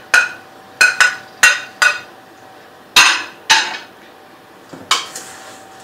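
A glass bowl and serving spoon knocking against the rim of a stainless steel mixing bowl as grapes are scraped in: a run of sharp, uneven clinks with a short metallic ring, about eight in all, the last one near the end.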